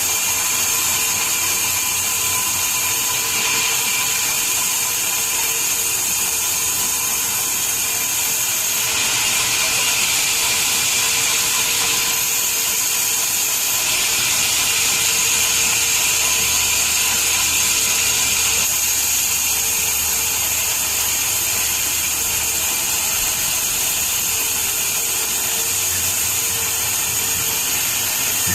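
Sawmill machinery running, with a saw cutting wood: a steady, loud, hissing machine noise with a faint whine under it. The tone shifts slightly a few times.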